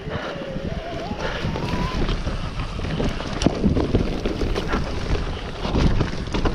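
Mountain bike ridden fast down a dirt forest trail: tyres rumbling over the ground with frequent clattering knocks of the bike over bumps, and wind buffeting the helmet camera's microphone.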